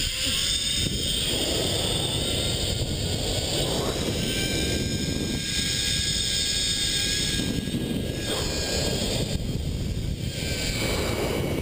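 Zipline trolley running along a steel cable, a steady whirring rush mixed with wind on the microphone, with a faint high whine over it.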